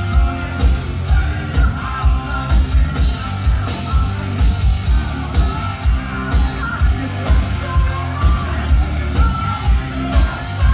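Live hard rock band playing loud: distorted electric guitars, bass guitar and a steady kick-drum beat, with the lead singer singing and yelling over it.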